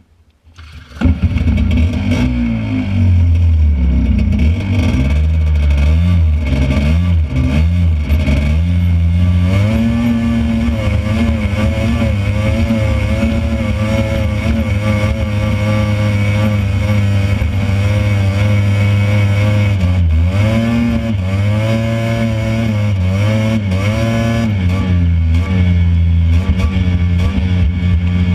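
Honda FL400 Pilot off-road buggy's single-cylinder four-stroke engine running under way, heard from the driver's seat. It comes in about a second in and rises and falls in pitch as the throttle opens and closes, then holds steadier, with a brief dip about twenty seconds in.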